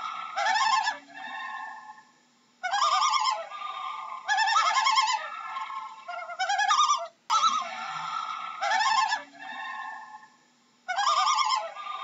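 Common loon calling in a run of quavering, wavering calls, each burst about a second long with short gaps between them. The recording loops, restarting with a faint click about seven seconds in.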